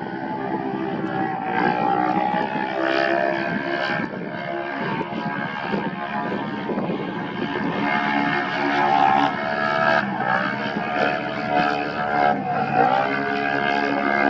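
Off-road race vehicle engine running hard at high revs. Its pitch drops and climbs again a couple of times in the second half, as with gear changes or throttle lifts.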